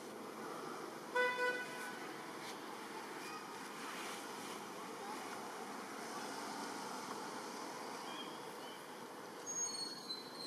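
Steady outdoor background noise like distant traffic, with a short vehicle-horn toot about a second in. A few brief high-pitched chirps come near the end.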